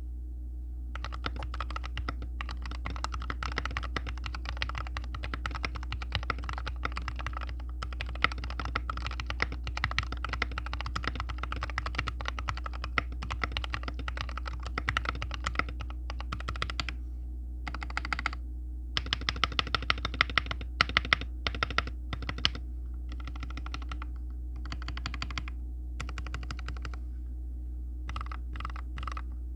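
Custom mechanical keyboard with Gateron Milky Yellow linear switches being typed on. The typing is fast and continuous for the first sixteen seconds or so, then comes in short bursts with pauses, including a run of louder single key strikes around twenty seconds in. A steady low hum runs underneath.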